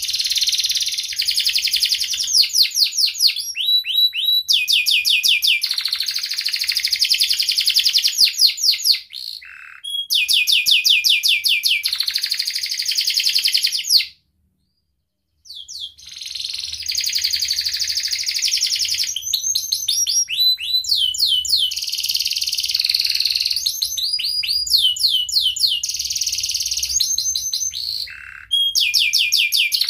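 Domestic canary singing a long, loud song of sharp chirps and fast rolling trills, the notes repeated many times a second in runs, with short breaks between phrases and about a second and a half of silence near the middle.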